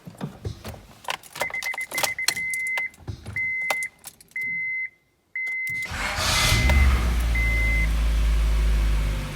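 Keys jangling and clicking in the ignition of a 1997 Honda Prelude while the dashboard warning chime beeps in short repeated tones; about six seconds in the starter engages and the engine turns over with a loud steady low sound. The attempt does not go cleanly, and the owner calls it weird.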